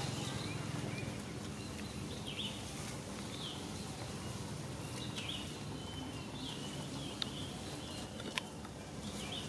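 Outdoor ambience: a steady low background rumble with short, high chirps scattered about every second, and two sharp clicks near the end.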